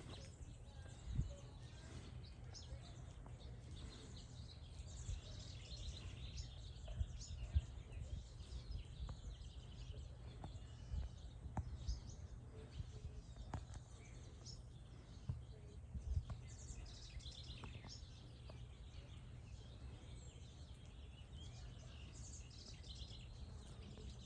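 Faint bird chirps scattered over a low steady rumble, with a few soft knocks.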